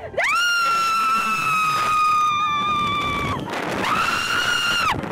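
A roller-coaster rider screaming in a high voice: two long held screams, the first about three seconds long, the second shorter and starting about three and a half seconds in.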